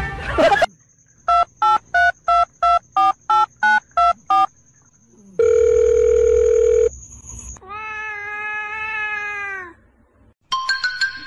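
Phone keypad beeps: about ten short tones of differing pitch, about three a second, like a number being dialled. Then a steady tone for about a second and a half, and a long meow from a cat, its pitch falling away at the end.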